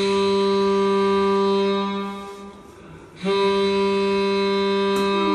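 Two long, steady low blasts from a free-reed instrument played as a ship's horn sound effect. The first ends about two seconds in, and the second starts about a second later and is held.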